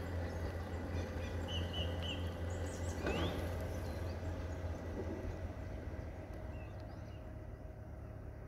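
Outdoor ambience: a steady low rumble, with a small bird chirping a few times, and a single knock about three seconds in. The rumble fades a little toward the end.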